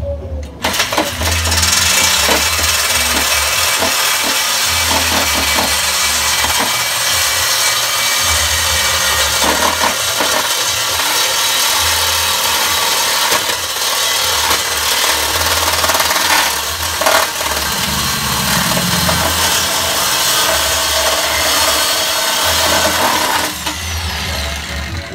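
Power cutting tool cutting through a car's steel exhaust pipe to take out the resonator: a steady, harsh cutting noise that stops near the end, the motor winding down with a falling whine.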